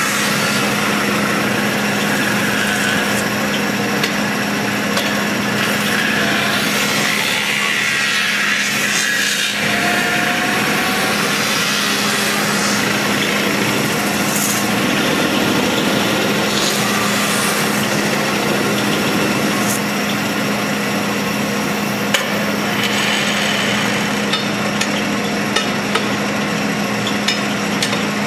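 Metal-spinning lathe running with a steady hum while a hand-levered spinning tool scrapes and rubs against the rotating sheet-metal dome. A few sharp ticks come near the end.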